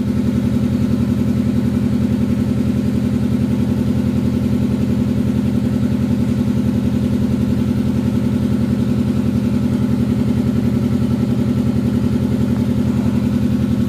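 An engine idling steadily, an even, unchanging hum.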